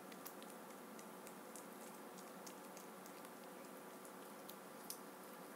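A rabbit chewing a strawberry: faint, irregular small clicks of nibbling, about two a second, over a steady faint hum.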